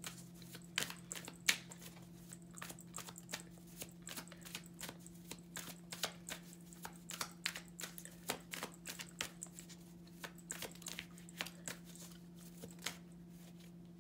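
Tarot cards being shuffled by hand: an irregular run of soft card clicks and snaps, several a second, over a steady low hum.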